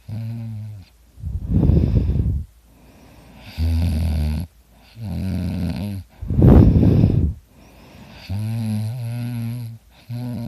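A person snoring in sleep, breath after breath: low droning snores alternate with two louder, rushing, noisy breaths, about two seconds in and again about six and a half seconds in.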